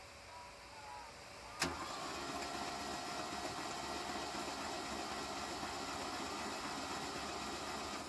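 A Ford Bronco's engine starts with a sharp click about one and a half seconds in, then idles steadily.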